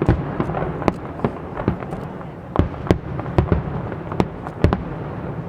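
Fireworks display: an irregular run of about a dozen sharp bangs over a continuous din, thinning out near the end.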